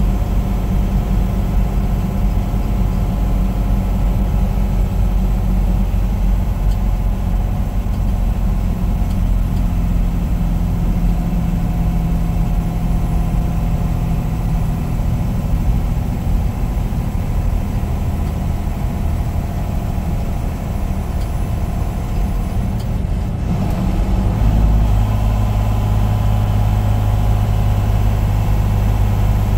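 Semi-truck diesel engine running steadily with a low drone. Its note shifts about two-thirds of the way through and stays on a lower, stronger tone after that.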